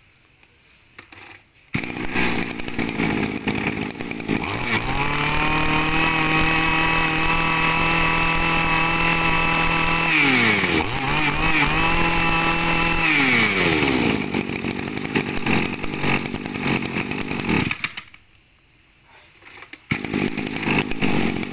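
Yanmar 26cc two-stroke brush cutter engine starting about two seconds in and revving up to a high, steady full-throttle whine. It drops and swings with a few throttle blips, runs at full throttle again, and then settles back to a low idle. It cuts out abruptly near the end and starts up again shortly after.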